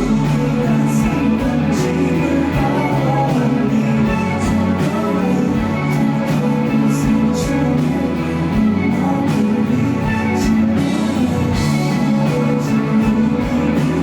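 Live band playing an instrumental passage, with a steady drum beat under sustained guitar and keyboard-like tones.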